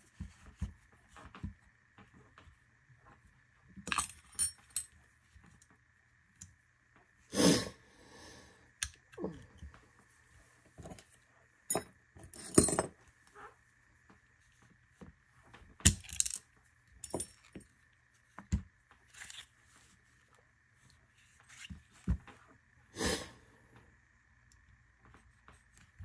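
Small metal parts of a Springfield Armory 1911 DS Prodigy pistol clicking and clinking as they are handled and set down, in scattered knocks with a few louder clanks.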